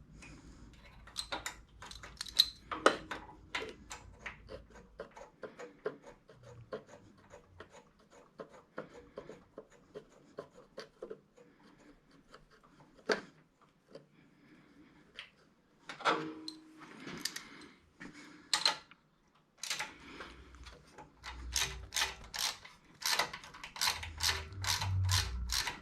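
Scattered light clicks and knocks of hand tools and small metal parts while ignition coils are fitted to a Kohler engine, then near the end a fast, even run of clicks from a ratchet wrench tightening the coil mounting bolts.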